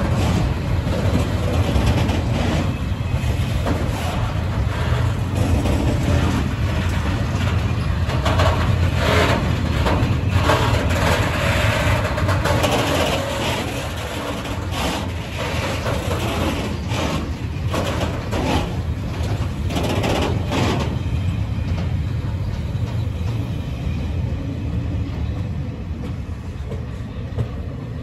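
Freight train passing: a steady low rumble, with a long run of clanks and rattles from the wagons through the middle. The sound then eases off to a quieter rumble.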